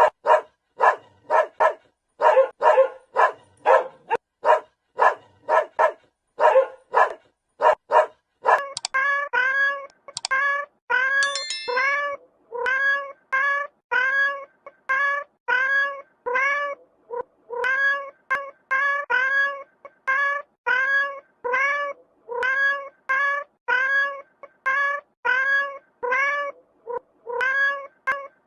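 A dog barking in quick, repeated short barks, giving way about nine seconds in to a cat meowing over and over. The meows rise then fall in pitch and come about three every two seconds.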